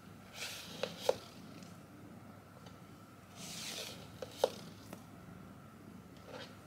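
Light clicks and rustling as a cat paws a plastic hair roller on a wooden floor: two soft swishes, with two sharp taps about a second in and two more just after four seconds.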